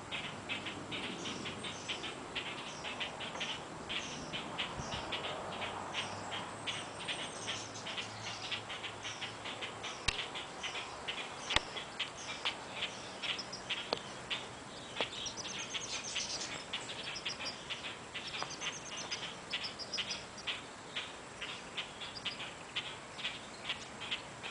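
A small bird chirping over and over, about two to three short chirps a second, with higher, thinner bird calls now and then. Two sharp clicks come in the middle.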